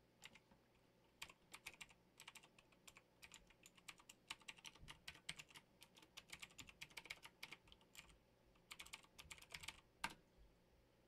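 Faint computer keyboard typing: a quick, uneven run of key presses as a username and password are entered, with a short pause a little after eight seconds, then one louder keystroke about ten seconds in.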